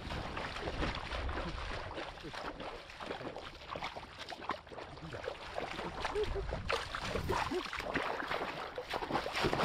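Feet wading and splashing through shallow, muddy floodwater in a rice field, with heavier splashing near the end where a fish thrashes in the water.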